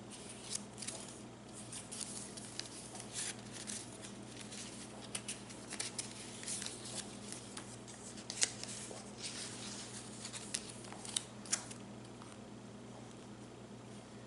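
Paper rustling and crinkling as the pages, tags and envelopes of a handmade paper journal are handled and turned, in irregular light crackles and taps, a few sharper ones in the later part. A faint steady hum sits underneath.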